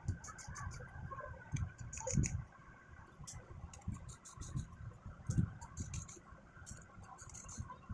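Faint scattered clicks and a few soft knocks of a small screwdriver taking the tiny screws out of an opened smartphone.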